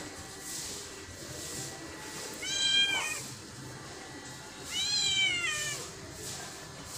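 Tortoiseshell cat meowing twice, a couple of seconds apart, each call rising then falling in pitch, the second one longer.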